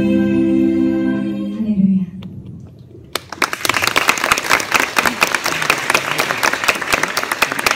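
Large gospel choir holding its final chord, which cuts off about two seconds in and rings away briefly. About a second later the audience breaks into steady applause.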